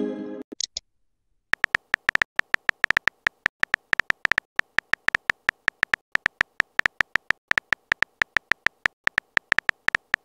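Smartphone on-screen keyboard click sounds, rapid and uneven at several taps a second, as a text message is typed. It opens with the end of an incoming-message chime.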